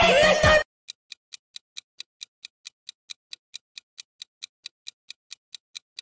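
Music cuts off abruptly about half a second in, followed by a quiz countdown timer's clock-tick sound effect ticking steadily, about four to five ticks a second.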